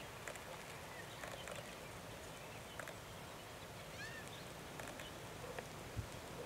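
Quiet outdoor ambience with scattered faint clicks, a single short bird chirp about four seconds in, and a soft low thump near the end.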